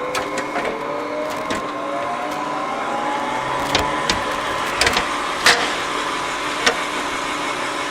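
Blanchard 18-36 vertical-spindle rotary surface grinder running, its wheelhead being moved under power, with a whine that rises steadily in pitch over the first four seconds and then holds. A few sharp clicks come later.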